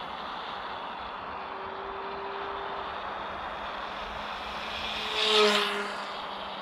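Small electric RC plane buzzing in flight: an MF1904 brushless motor spinning a GWS 7035 propeller, over a steady hiss. The buzz swells briefly and loudly about five seconds in as the plane passes close.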